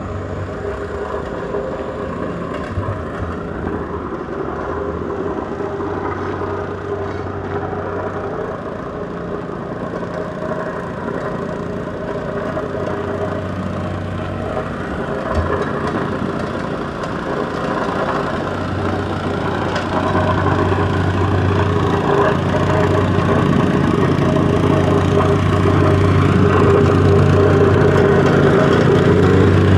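City street traffic, with a motor vehicle's engine running close by as a steady low hum that grows louder over the last ten seconds. A single short knock sounds about halfway through.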